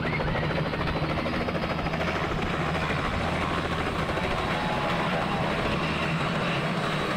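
Small two-bladed light helicopter lifting off and hovering low, its rotor beating rapidly and evenly over a steady engine hum.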